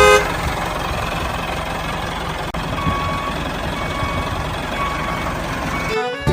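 Heavy truck engine running with a reversing alarm beeping about once a second, the beeps starting about three seconds in.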